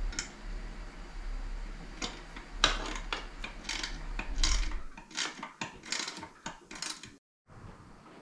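Irregular clicks and knocks of hand tools and metal intake hardware being handled while a clamp and bolt are fitted on an aftermarket intake tube in the engine bay. The sound drops out briefly near the end.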